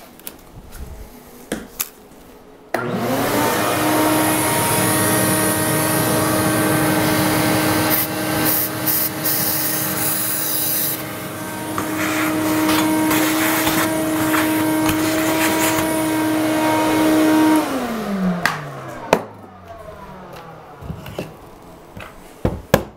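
An electric motor starts abruptly and runs steadily for about fifteen seconds with a hissing rush on top for the first several seconds, then winds down with falling pitch over a couple of seconds; a few handling clicks come before and after.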